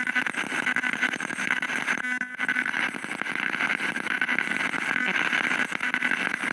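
Handheld spirit box sweeping rapidly through radio stations, putting out a continuous choppy hiss of static through its small speaker, with a brief pitched buzz about two seconds in.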